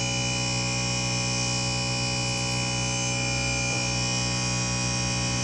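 Train-horn air compressor running with a steady electric hum, refilling the horn's air tank after a blast.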